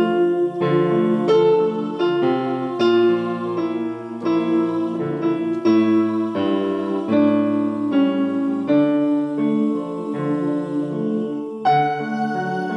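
Piano music: a slow run of struck chords and single melody notes, each ringing and fading before the next.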